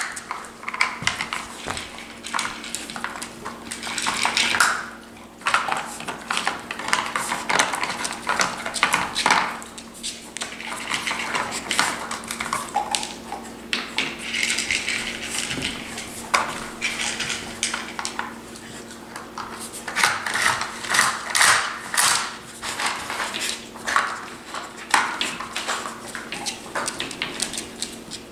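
Hard plastic dog treat-puzzle toys clattering on a hardwood floor as two bull terriers nose and paw at the lids and sliding pieces: irregular clicks, knocks and rattles throughout.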